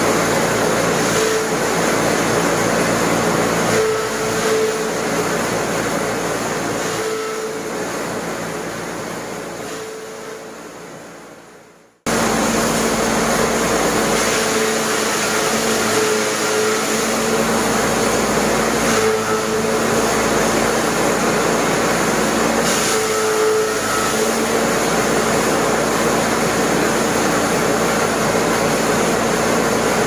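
Electric-motor-driven silage cutter running steadily while chopping green fodder stalks, a loud mechanical hum and rush of chopped material. The sound fades away over about ten seconds, then comes back suddenly at full level.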